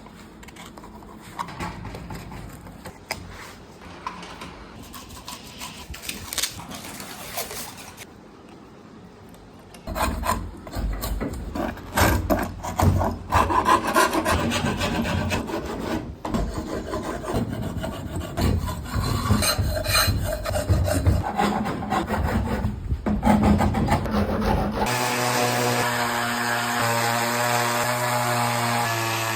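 Abrasive scraping and rubbing strokes on the wood of an old cricket bat, quiet at first and much louder and busier from about a third of the way in. Near the end a steady hum takes over.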